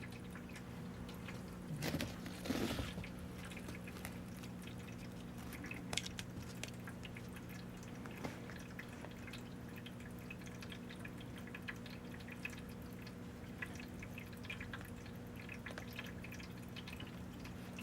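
Quiet room tone with a steady low electrical hum and scattered faint ticks and taps, a little louder about two to three seconds in.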